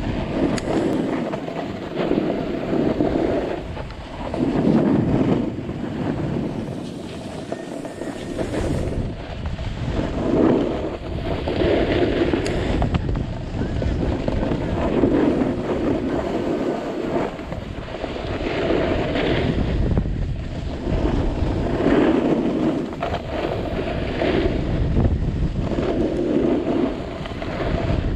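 Wind buffeting the microphone of a camera carried down a ski slope at speed, with the hiss and scrape of edges cutting across packed snow swelling about every two seconds as each carved turn is made.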